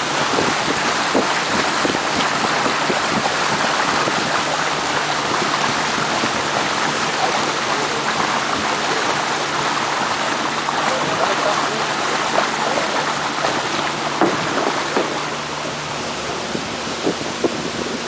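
Motorboat under way: a steady rush of water along the hull with the low, even hum of the boat's motor beneath it, and a few short knocks in the second half.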